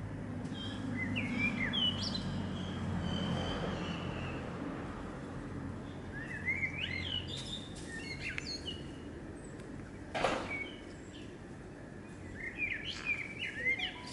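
Songbird chirps and twitters, short quick rising and falling notes in three separate bursts, over a low steady background rumble. One short sharp rustle or knock about ten seconds in.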